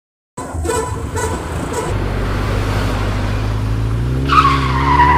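A car engine running steadily after a brief silence, then revving up a little near the end as a steady high-pitched tone joins in.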